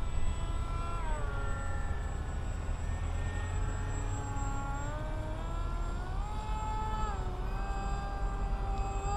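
Whine of the radio-controlled foam F-16 model's electric motor in flight, its pitch falling and rising as the throttle changes and the plane passes, over a low rumble of wind on the microphone.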